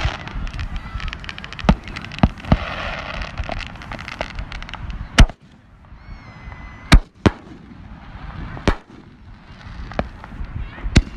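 Fireworks going off: about eight sharp bangs at irregular intervals, with crackling between them.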